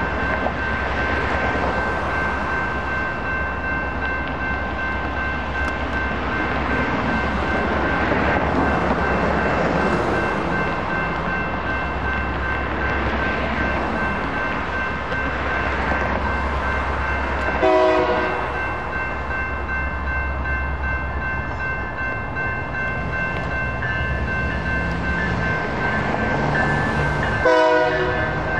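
Railroad crossing warning bell ringing steadily over the rumble of rail traffic, with two short horn toots, one about halfway through and one near the end.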